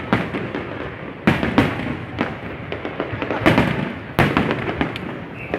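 Fireworks bursting overhead: a run of sharp bangs, roughly one every second, with crackling between them.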